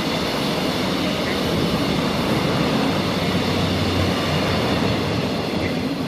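Coaches of a locomotive-hauled passenger train rolling past close by: a steady, loud noise of wheels running on the rails.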